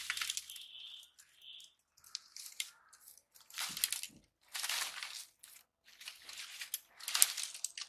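Dry twigs and brushwood sticks crackling and rustling as they are pulled from a pile by hand, in about six short bursts.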